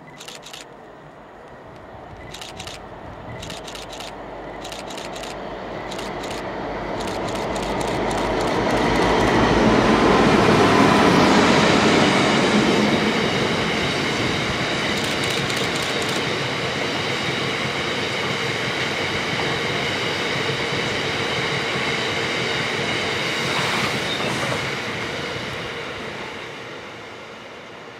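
Class 60 diesel locomotive approaching and running past, loudest about ten seconds in, followed by a long rake of loaded aggregate hopper wagons rumbling and clattering by with a steady high-pitched wheel squeal. The sound fades as the last wagons pass near the end. Sharp ticks come through in the first several seconds as the train nears.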